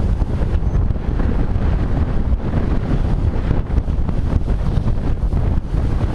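Strong wind buffeting the camera microphone in a low, rumbling roar, over the rush of rough sea water past a sailboat's hull.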